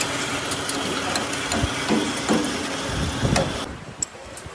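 Steel rickshaw chassis parts being handled and knocked together as the rear axle and leaf spring are fitted to the frame: several metallic knocks and clanks over a steady workshop hum, then a sharp click near the end.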